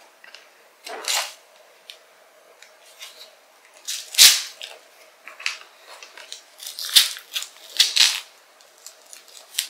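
Short scraping rustles and knocks from a kitchen knife being handled and fitted into a strap-on hand cuff that holds it for a paralysed hand. The loudest comes about four seconds in, with two more near the end.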